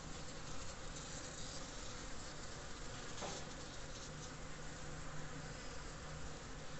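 Many bees buzzing steadily as they forage at angel's trumpet (Brugmansia) flowers. A deeper hum stands out for about a second and a half, about four seconds in.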